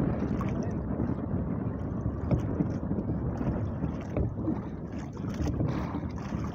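Wind buffeting the microphone over waves lapping against a small outrigger canoe at sea, with a few light knocks.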